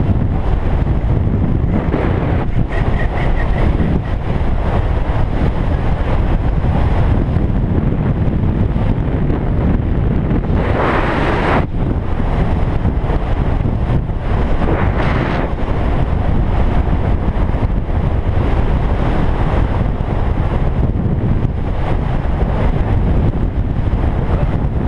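Wind buffeting the camera microphone on a mountain bike coasting fast downhill, a steady dense rumble with brief swells of hiss about eleven and fifteen seconds in.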